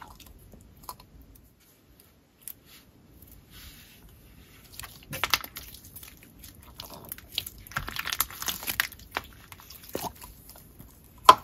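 Play-Doh Super Stretch slime being pulled from its plastic tub and stretched by hand: sticky squishing and tearing crackles, sparse at first and busier from about five seconds in, with one sharp snap near the end.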